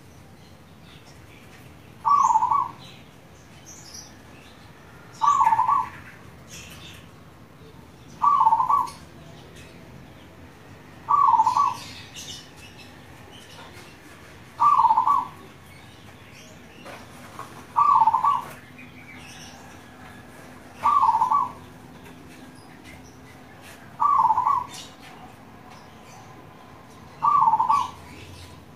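Zebra dove (perkutut) singing, a short coo phrase repeated evenly about every three seconds, nine times. Faint high chirps sound in the background.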